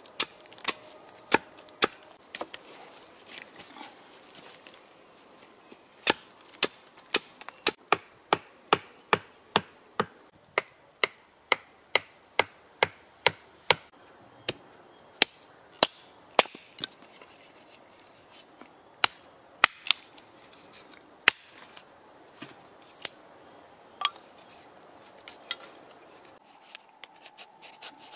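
Hatchet chopping into wood on a birch-stump chopping block, splitting and trimming small sticks. A long series of sharp strikes, about two a second in the middle stretch and sparser and uneven elsewhere.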